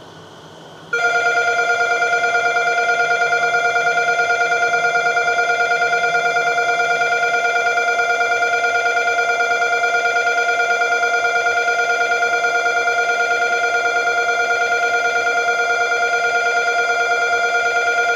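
Station platform departure bell ringing continuously, starting suddenly about a second in: a steady electric bell ring with a fast flutter, the signal that the train is about to leave.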